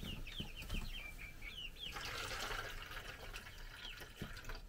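Baby chicks peeping in short, falling chirps; about two seconds in, liquid is poured from a glass bottle with a brief splash, under the peeping.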